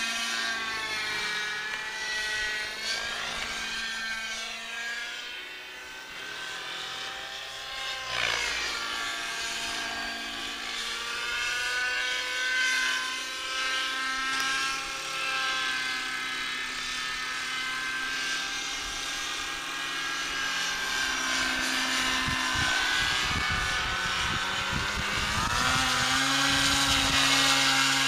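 Radio-controlled model helicopter of about 600 size flying mild 3D manoeuvres, its rotor and motor whine rising and falling in pitch as it manoeuvres, and growing louder near the end.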